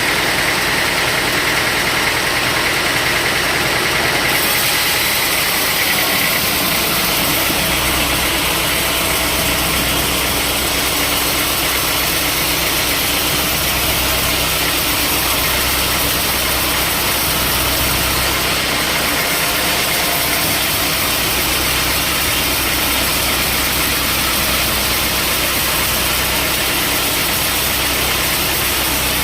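Sawmill machinery running: a steady engine drone with the rushing noise of the saw, the sound changing about four seconds in and a deeper hum coming up around six seconds in.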